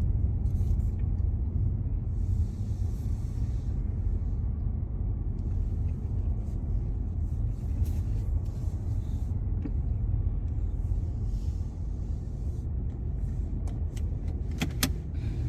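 Steady low rumble of a car running. A few sharp clicks come near the end.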